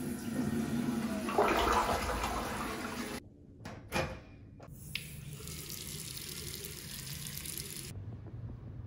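Electronic-flush toilet flushing with a loud rush of water, cut short after about three seconds. About a second later comes a sharp click from a stall door's thumb-turn lock, then a faucet runs into a sink for about three seconds and stops suddenly near the end.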